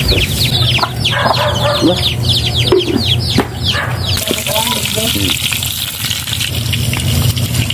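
Chickens calling in quick, high, falling cheeps for the first half. From about four seconds in, garlic sizzles in hot oil in a wok.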